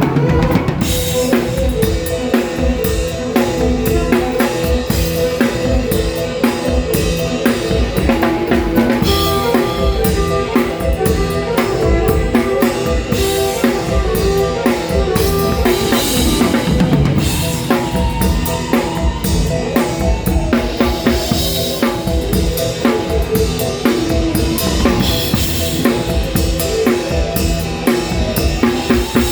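Live rock band playing, with a drum kit (bass drum, snare and rimshots) driving a steady beat under sustained pitched instruments.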